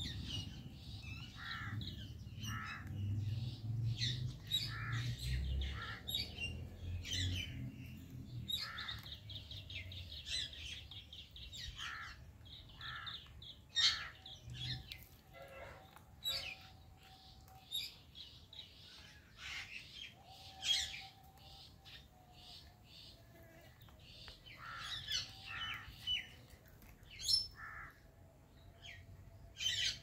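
Alexandrine and Indian ringneck parrots chirping in many short, separate calls, a few a second, with quieter stretches between runs. A low rumble sits under the calls in the first several seconds.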